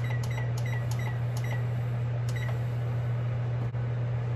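Pasta boiling in a saucepan on a gas stove, with irregular ticking pops that stop about halfway, over a steady low hum.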